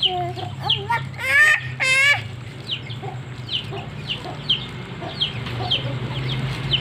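Young chicks peeping: short, falling cheeps repeating two to three times a second, with two louder, wavering calls about a second and a half in.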